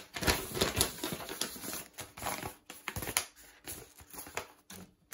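Sheets of paper being handled and shuffled, rustling and crinkling with many quick, irregular crackles that thin out near the end.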